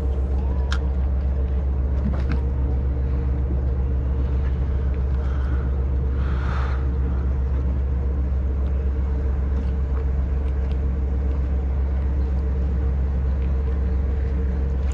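Steady low motor hum, running evenly, with a few faint clicks and a brief soft rush of noise about six and a half seconds in.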